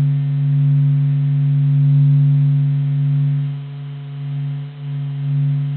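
Steady low drone of a planet sonification, magnetic-field data turned into audible sound: a deep hum with a few faint higher tones above it, dipping in loudness about four seconds in before swelling again.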